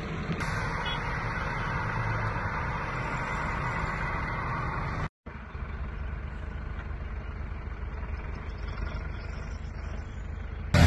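Steady roadside background noise with a low vehicle hum, broken by a momentary dropout about five seconds in.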